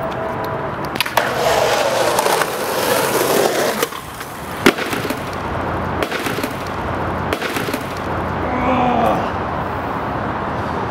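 Skateboard wheels rolling on concrete, then sharp clacks and hard knocks of the board as the skater tries a trick and slams. The sharpest crack comes about halfway through, and the board's tail is cracked in the fall.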